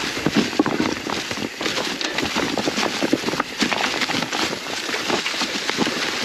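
Mountain bike descending a rocky, leaf-covered trail: a dense, irregular run of knocks and clatters from the tyres and bike over rocks, with dry leaves crunching under the wheels.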